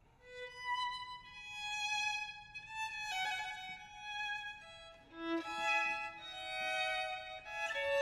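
Violin music starting up: a slow melody of long held notes.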